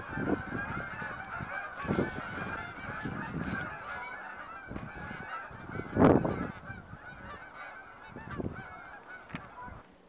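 A large flock of geese flying over, many honking calls overlapping. A few louder, nearer honks stand out about two and six seconds in, and the calling thins out toward the end.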